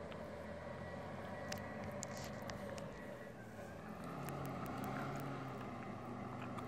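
Engine of a snow-clearing machine running steadily, working harder and rising a little in pitch and level about four seconds in, with scattered small ticks over it.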